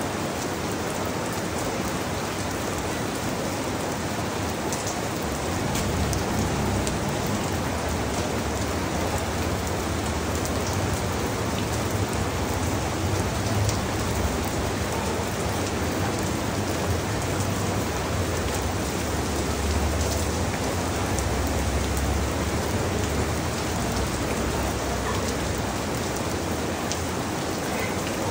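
Steady rain falling on mango tree leaves, a dense even hiss with faint individual drops ticking. A low city rumble underneath grows stronger about six seconds in and eases again near the end.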